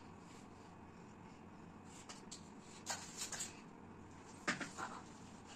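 Faint handling noises: a few short clicks and rustles over low room hiss, about two, three and four and a half seconds in.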